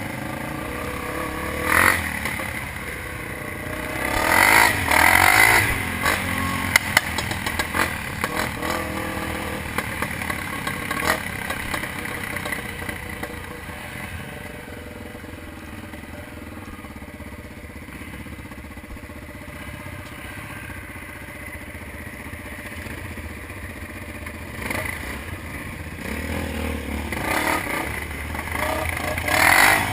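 Dirt bike engine running on a trail ride, surging louder with revs about two seconds in, again around four to six seconds in, and near the end, and running steadier and quieter in between.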